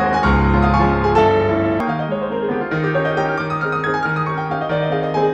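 Background music played on piano, with melody notes over held bass notes.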